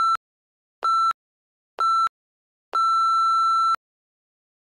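Electronic interval-timer beeps on one pitch: three short beeps about a second apart, then one long beep lasting about a second. It is the 3-2-1 countdown that ends a 30-second work interval and starts the 10-second rest.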